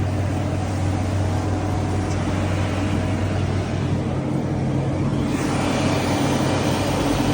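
An engine running steadily with a constant low hum. About five seconds in, a broad rushing noise grows louder over it.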